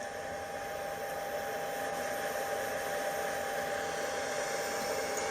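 Steady hiss of steam from a halted model steam locomotive, with a thin steady tone running through it, swelling slightly at first and then holding even.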